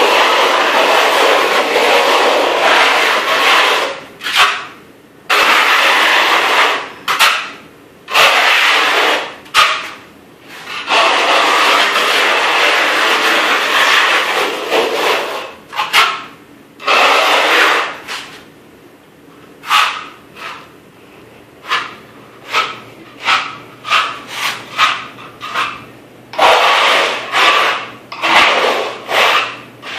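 A hand-held block rubbed and scraped over a gritty, dust-covered floor: long stretches of steady scraping broken by pauses, then short quick strokes about two a second near the end.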